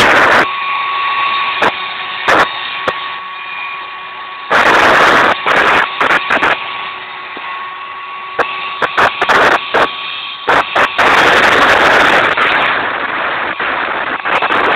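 Router spindle of a homemade CNC machine running with a steady high whine while its bit makes a finishing pass through wood, with many sharp loud bursts and two longer rough stretches, about 4.5 seconds in and about 11 seconds in, as the cutter bites harder into the wood.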